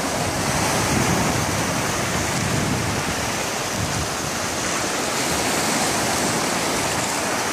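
Steady rush of small waves breaking and washing up a sandy beach.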